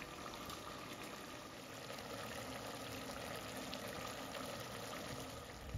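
Chicken masala bubbling steadily in a pot on a high gas flame as the juices from the chicken boil off.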